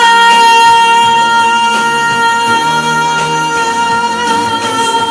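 Pop ballad music: a single high note held steadily for about four seconds over guitar and band accompaniment, wavering slightly near the end.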